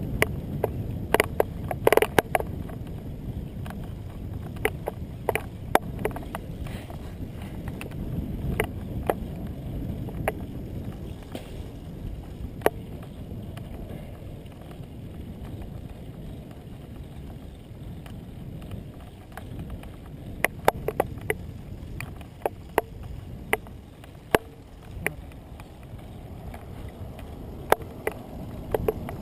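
Riding a road bicycle: wind rumbling on the microphone over a steady road rumble, with irregular sharp clicks and rattles as the bike goes over bumps, bunched near the start and again in the last third.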